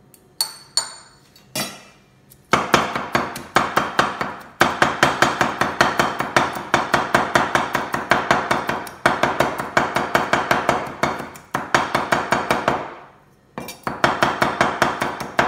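A cleaver mincing small shrimp on a wooden cutting board: a few single chops, then long runs of fast, even chopping at several strokes a second, broken by short pauses.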